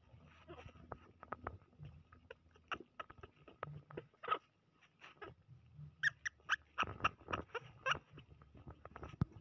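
Baby macaque giving short squeaky calls, several in quick succession about six to eight seconds in, with soft clicks and rustles between them.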